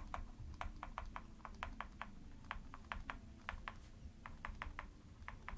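Faint, irregular light clicks, about twenty of them, from a stylus tapping on a drawing tablet while a word is hand-lettered.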